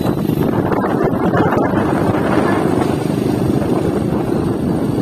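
Steady engine and road noise of a moving motor vehicle, even and unbroken.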